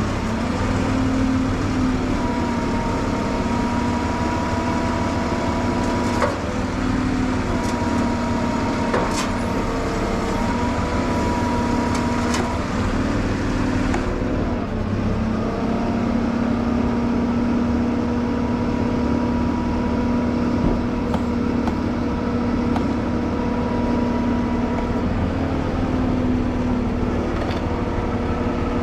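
Service truck's engine running steadily to power a hydraulic tire manipulator working a combine tire, with a thin steady whine over the engine note and a few light knocks.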